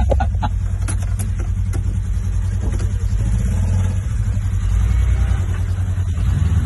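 Truck engine running, heard from inside the cab as a steady low rumble, with a few short knocks in the first couple of seconds.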